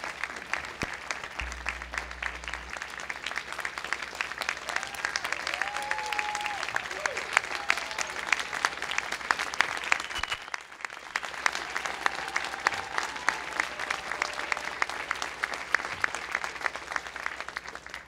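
Audience applauding: a long round of many hands clapping, with a voice or two calling out over it, and a brief dip about ten seconds in.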